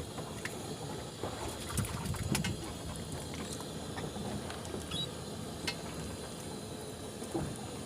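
Steady low background noise with scattered light clicks and knocks, a small cluster of them about two and a half seconds in.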